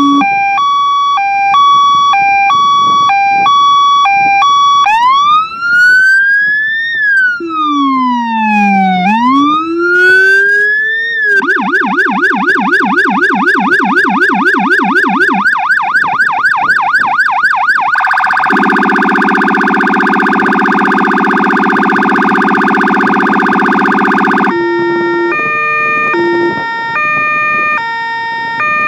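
Fire engine's electronic siren run through its tones. First a steady two-tone hi-lo, then slow rising-and-falling wails, then a fast yelp. Next comes a steady horn-like tone, and near the end a quick alternating pattern of several tones.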